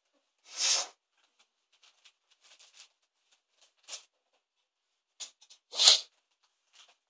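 Wrapping paper being torn and crinkled by hand as a present is unwrapped: a few short rips with faint crackling between them, the loudest near the end.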